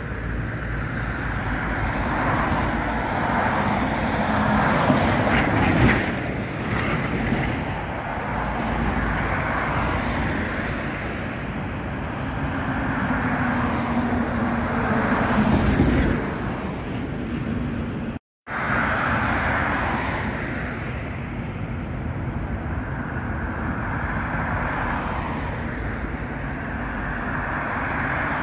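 Road traffic going past close by, cars swelling and fading in turn, with a brief drop-out about two-thirds of the way through.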